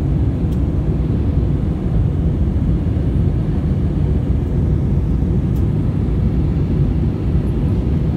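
Steady low roar of an airliner's jet engines and rushing airflow, heard inside the passenger cabin in flight.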